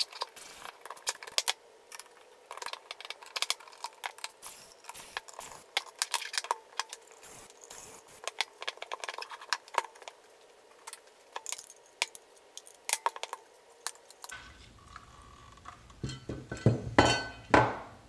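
Screwdriver backing screws out of a plastic Pipe Horn 100 receiver housing: many small, rapid clicks and light metal clinks as the screws turn and come free. Near the end come louder knocks and rubbing as the plastic case halves are handled and opened.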